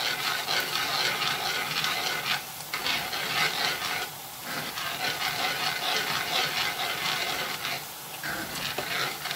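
Tomato sauce in a cast iron skillet sizzling with a steady hiss as heavy cream is poured in and whisked through, with a few short breaks.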